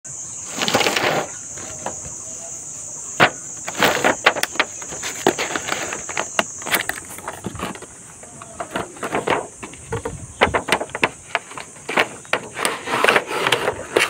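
A cardboard toy box being handled and opened: clicks, taps and rustles of the cardboard and its plastic window, with a louder scrape about a second in, over a steady high-pitched hiss.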